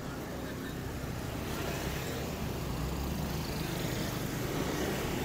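Road traffic: a motor vehicle's engine running with a low hum and tyre noise, growing slowly louder.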